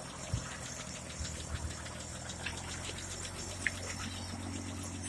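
1934 Chevrolet stovebolt inline-six idling steadily after its top-end rebuild, a low even hum with a few light clicks.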